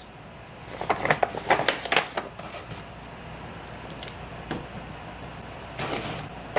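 A paper gift bag rustling and crinkling as a phone box is pulled out of it: a run of quick crackles in the first two seconds, then quieter handling with a short rustle near the end.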